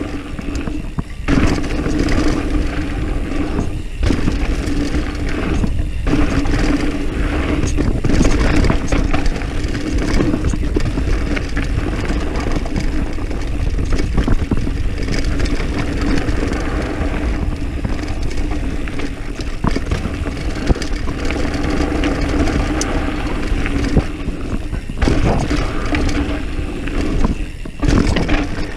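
Diamondback Mission 1 mountain bike riding fast downhill on dirt singletrack: wind buffeting the on-board camera's microphone, tyres rumbling over dirt and the bike rattling over bumps. The noise is loud and continuous, with a few brief dips.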